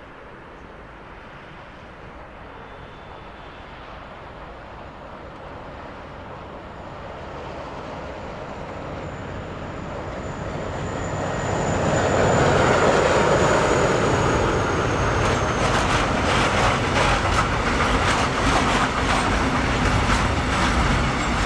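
A locomotive-hauled freight train approaching and passing close by, growing steadily louder until the locomotive goes past about twelve seconds in, with a faint high whine that drops in pitch as it passes. Then the open box wagons roll by with a rhythmic clickety-clack of wheels over the rails.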